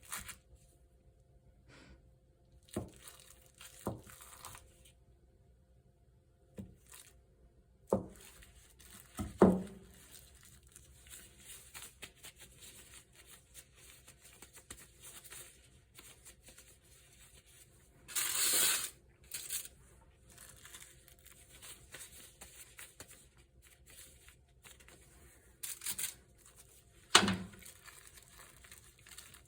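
Scattered handling noises in a small room: a few sharp knocks and thuds, and a short rustling, crinkling burst about two-thirds of the way through.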